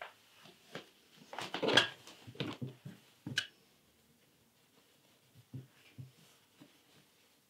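Steam iron pressed and slid over knit fabric on a pressing ham, with short rustling and scuffing noises and a sharp click a little over three seconds in. Softer knocks follow about two-thirds of the way in as the iron is stood on its heel on the ironing board.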